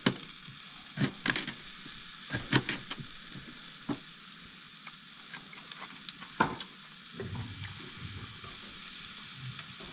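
Mushrooms sizzling in a frying pan on a propane camp stove, a steady hiss. Over it come scattered sharp clicks of a knife cutting a pepper against a plate.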